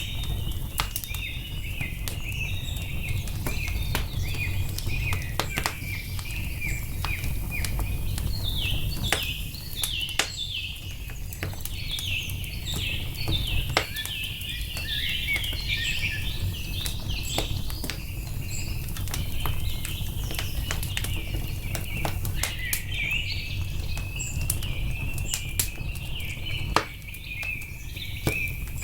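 Wood fire crackling with scattered sharp pops over a steady low rumble, with songbirds chirping throughout; the birdsong is busiest in the middle, where it turns into runs of quick falling chirps.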